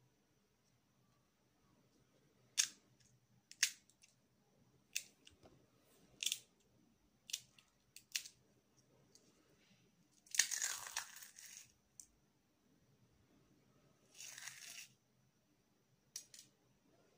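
Crisp fried fuska (pani puri) shells cracking and crunching as they are handled and crushed by hand. First come several short, sharp cracks, then a longer crunch about ten seconds in and another about fourteen seconds in. The crunch shows how crisp the fried shells are.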